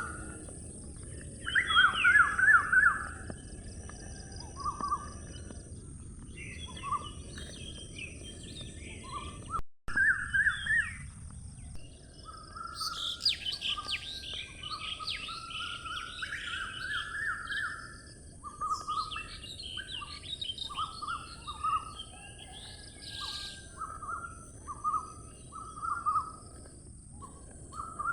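Several songbirds chirping and singing, with short trills overlapping one another, over a steady low background hiss. The sound cuts out for an instant about ten seconds in.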